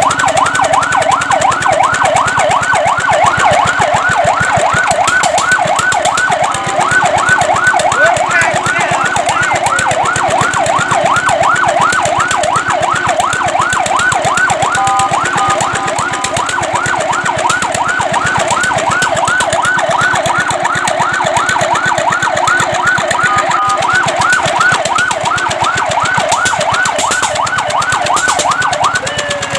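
Fire truck siren in a fast yelp, sweeping up and down about three to four times a second. A few times it briefly switches to short steady tones.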